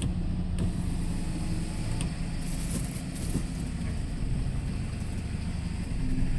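Vehicle engine running steadily with a low hum, heard from inside the cabin while driving slowly, with a few faint knocks.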